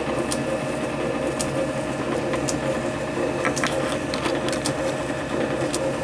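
Steady mechanical hum with scattered light metallic clicks and taps as a small hex-aluminium jig is handled and seated in a lathe's quick-change tool post.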